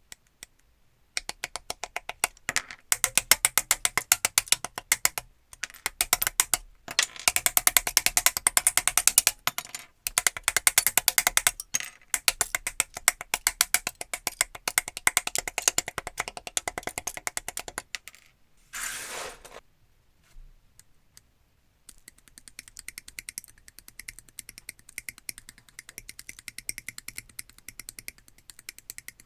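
Hobby nippers snipping plastic model-kit parts off the sprue and trimming the gate nubs: a rapid, dense run of sharp clicks. The clicks are loud at first, stop briefly after a short rustle near two-thirds of the way through, then go on softer.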